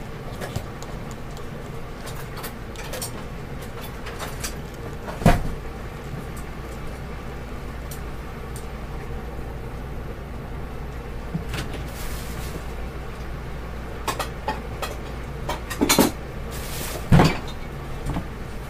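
Plastic toy kitchen pieces being handled and set down: scattered light clicks and taps, with a few louder knocks about five seconds in and twice near the end, over a steady low hum.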